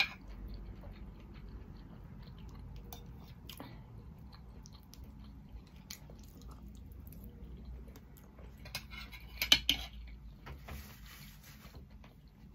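Metal fork and knife clinking and scraping on a plate while eating, with chewing. A louder clatter comes about nine and a half seconds in, as the cutlery is set down on the plate.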